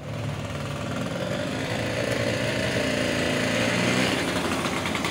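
Small engine of a mini motor scooter buzzing steadily, growing gradually louder as the scooter rides up.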